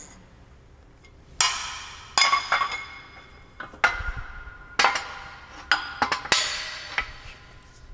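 Metal parts being set down and shifted on the bed of a hydraulic shop press: a run of sharp clanks, several of them ringing on briefly after the knock.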